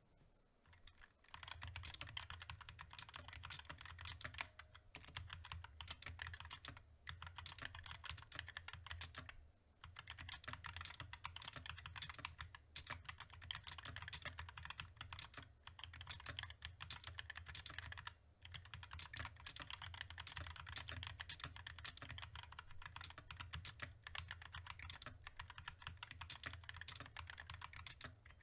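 Fast continuous typing on a mechanical keyboard, a dense run of key clacks that starts about a second in and breaks off briefly three times.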